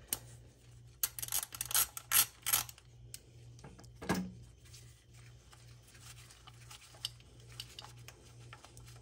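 Metallic clicking and rattling of a 3/8 ratchet and 10 mm socket backing out a coil-pack bolt, in quick bursts in the first few seconds, with a brief knock about four seconds in and then only light scattered ticks.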